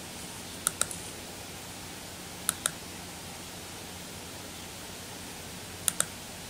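Computer mouse button clicking: three pairs of quick clicks, about a second in, about two and a half seconds in and near the end, over a steady microphone hiss with a faint hum.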